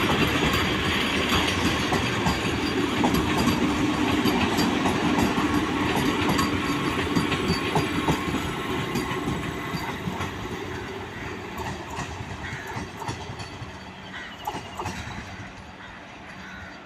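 Vande Bharat Express electric multiple-unit train running on the track, wheels clicking over the rail joints. The sound fades steadily through the second half.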